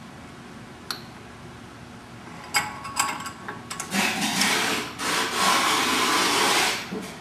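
Drill tap machine driving three 10-32 taps into metal parts: a few sharp metallic clicks, then a loud rubbing, grinding cutting noise from about four seconds in that lasts nearly three seconds and stops abruptly.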